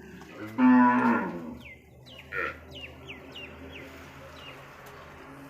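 Dairy cow mooing: one loud call of about a second, starting about half a second in and falling in pitch at its end, followed by a brief, fainter low call.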